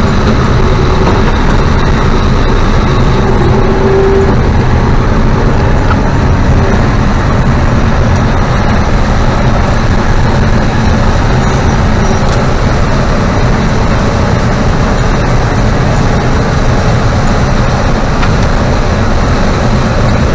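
Combine harvester running steadily while harvesting soybeans: a loud, even drone of engine and threshing machinery.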